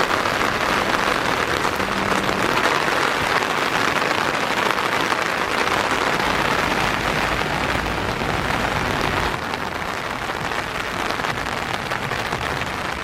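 Steady rain falling, an even hiss that eases slightly about nine seconds in.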